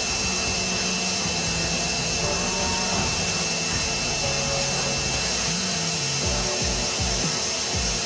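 Wet vac running steadily, its hose nozzle held at the radiator valve to suck up water draining from the central heating system.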